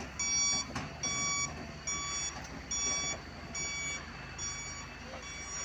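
Excavator travel alarm beeping steadily, about seven evenly spaced beeps a little over one a second, over the low, steady run of the Doosan DX225LCA's diesel engine as it tracks forward.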